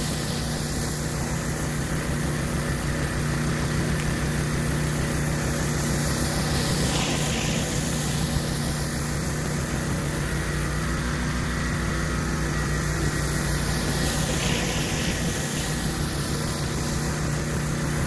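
Pressure washer engine running steadily under load, with the hiss of high-pressure water spraying from a surface cleaner on concrete. The hiss swells briefly twice.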